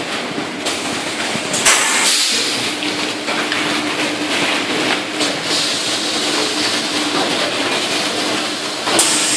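An automatic tray-sealing machine running, with a steady hiss and hum. Short, sharper bursts of hissing come about two seconds in and again near the end.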